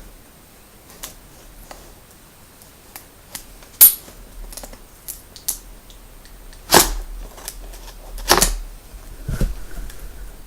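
Retail packaging being handled and opened by hand: scattered small clicks and crackles with three sharp snaps, the loudest a little under four seconds in.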